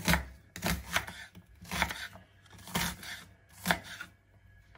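Kitchen knife chopping an onion on a wooden cutting board: about six cuts at an uneven pace, roughly one a second, each blade knocking onto the board.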